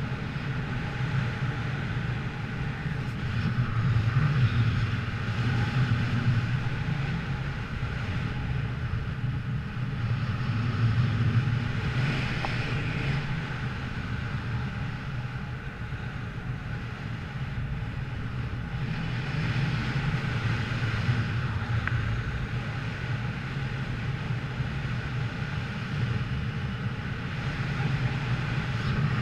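A motor vehicle's engine running steadily, with a deep drone that swells and eases every few seconds, and wind noise on the microphone.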